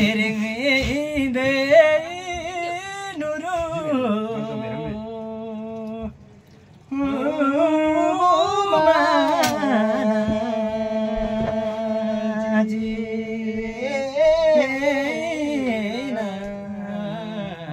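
A man singing a Karmarong folk song without accompaniment, in long drawn-out notes with wavering ornaments, pausing for breath about six seconds in before going on.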